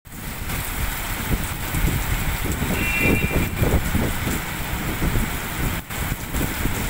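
Heavy rain pouring down on a wet street, a steady hiss with an uneven low rumble underneath. A brief high tone sounds about three seconds in.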